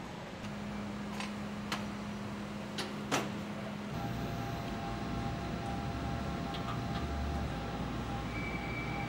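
Transmission assembly-line machinery humming steadily, with four sharp clinks in the first few seconds, the last the loudest. About four seconds in it changes to a different steady machine drone with a few faint steady tones.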